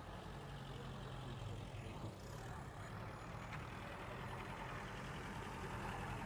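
A steady low engine hum over a general outdoor background.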